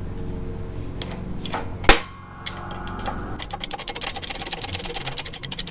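A single sharp bang about two seconds in as the press-fitted shaft of a Toyota TRD supercharger nose cone breaks loose under a 20-ton bottle-jack shop press. It is followed by a run of rapid light metallic clicks as the pressing goes on more easily.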